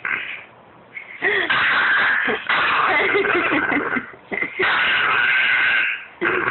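Dog's raspy, wheezing 'laugh' while being tickled: rapid huffing breaths mixed with short squeaky sounds, in two long spells with a brief pause between them.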